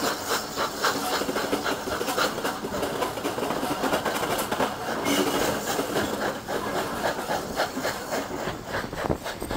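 Steam-hauled passenger train running along the line, heard from a window of one of its coaches: wheels clattering and rumbling over the rails, with the steam exhaust of GWR 0-6-0PT pannier tank 4612 working at the head of the train.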